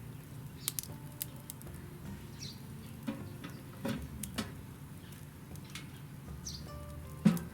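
Scattered light clicks and taps, with a single sharp knock near the end. A faint, short, high chirp sounds twice.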